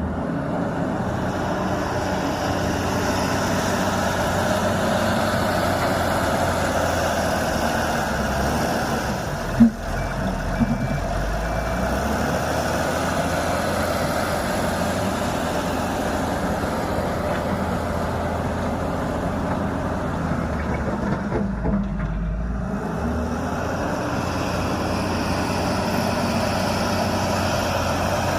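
Backhoe loader's diesel engine running steadily, with one sharp knock about ten seconds in and a brief change in the engine note a little after twenty seconds.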